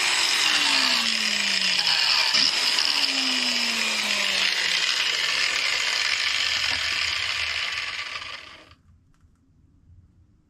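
Power tool spinning a wire wheel against metal, cleaning it down for welding: a steady harsh whir whose motor pitch slides down twice. It winds down and stops near the end.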